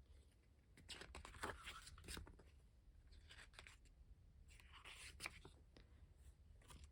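Faint rustling and light handling of paper as album photobook pages are turned, coming in two short spells with quiet room tone between.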